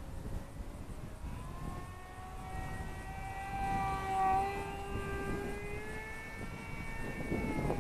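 Electric motor and propeller of an Eachine & ATOMRC Seal Wing G1500 RC glider in flight, heard from the ground: a whine of several pitches that climbs slowly, is loudest about four seconds in, then eases off. A low rumble of wind on the microphone runs underneath.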